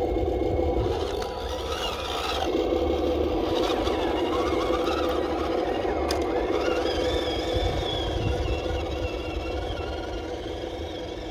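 Radio-controlled 6x6 scale truck's motor and drivetrain running as it drives through shallow muddy water, with a steady drone under a whine that wavers up and down with the throttle. There is one sharp click about six seconds in, and the sound fades near the end as the truck pulls away.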